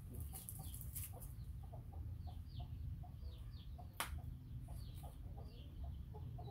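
Chickens clucking in the background, with a steady run of short high falling chirps. A single sharp click about four seconds in.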